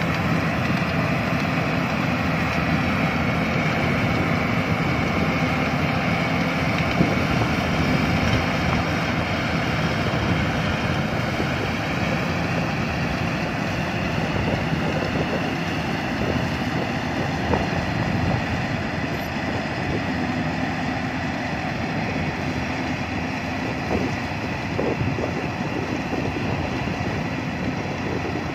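Yanmar AW82V rice combine harvester running steadily as it cuts and threshes rice: a continuous diesel engine drone with machinery noise, a little quieter near the end as it moves away.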